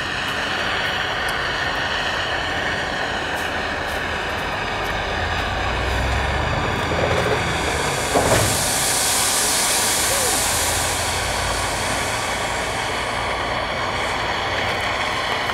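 Steam locomotive C58 239 being turned on a station turntable: a steady mechanical hum with a low rumble. About halfway through there is a short sharp sound, then a high hiss that comes in suddenly and fades after a few seconds.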